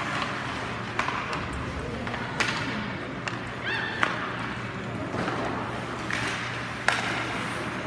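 Murmur of many voices from spectators, over a steady low hum, with several sharp knocks scattered through it, the loudest near the end.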